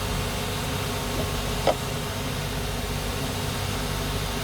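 A machine running steadily with a low hum and a hiss, with a short squeak about one and a half seconds in.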